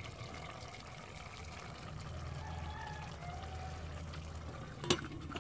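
Stir-fried vegetables simmering in a steel pot, a steady bubbling hiss, with one sharp metallic click near the end.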